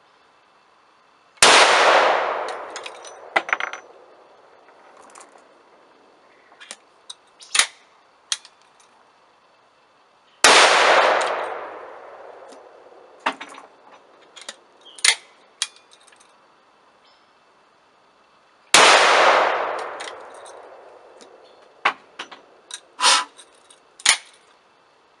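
.357 Magnum rounds fired from a 12-gauge break-action single-barrel shotgun through a Chiappa X-Caliber .357 adapter insert: three shots, each about eight or nine seconds apart and ringing out with a long echo off the woods. Between the shots come sharp metallic clicks and clanks of the action being broken open, the spent case pulled and a fresh round loaded and closed.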